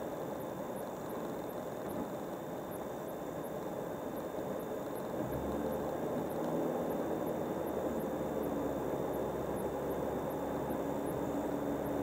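A car driving along a highway: steady tyre and engine noise, with a low rumble that gets louder about five seconds in.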